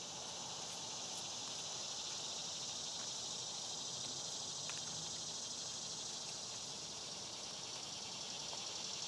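Cicadas droning in a steady, high, even buzz.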